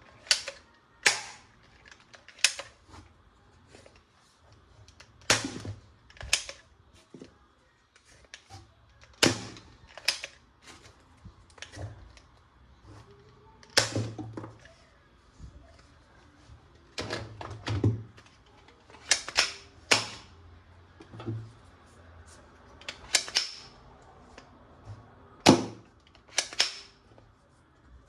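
Sharp plastic clicks and snaps at irregular intervals, about one every one to two seconds, from toy guns being handled.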